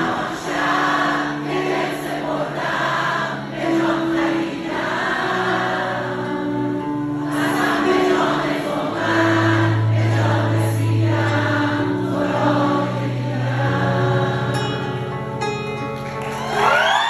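Live band playing a Persian pop song, with the concert audience singing along together like a choir over sustained bass and keyboard notes.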